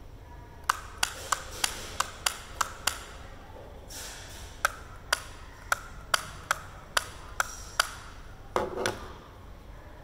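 Plastic push button of a wireless doorbell pressed repeatedly: a run of sharp clicks with a short ring, about three a second, a pause, then a second run. A short rustle follows near the end.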